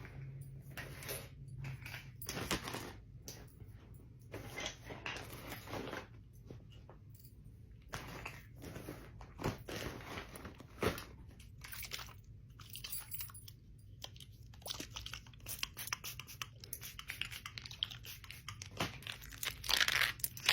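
Close-miked clicking and clacking of bangles and rings, an irregular run of sharp clicks with crackly, crunchy stretches, busier and louder near the end.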